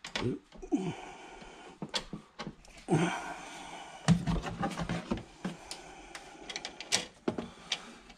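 Scattered clicks, taps and knocks of a screwdriver and wire being handled against a metal breaker panel, with rustling in between.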